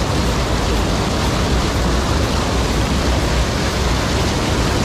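A small waterfall pouring over a rock ledge and churning into the pool below: a steady, loud rush of falling water right beside the microphone.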